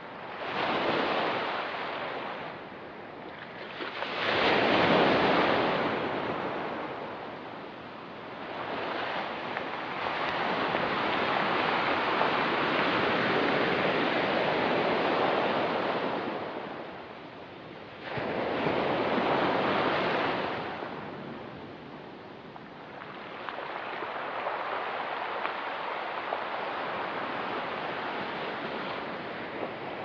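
Ocean surf on a rocky beach: waves break and wash up in swells every few seconds, one longer wash through the middle, with a steady hiss of water between them.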